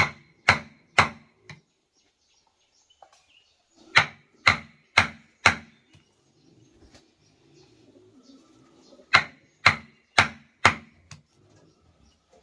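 A tool striking wood in sharp blows, about two a second in three runs of four, with pauses between.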